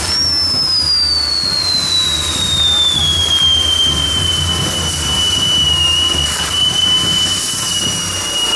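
Whistling firework on a burning castillo's spinning wheel piece: one long high whistle that slides down in pitch over the first few seconds, then holds nearly steady until it stops near the end. Under it runs a steady hiss and crackle of burning pyrotechnics.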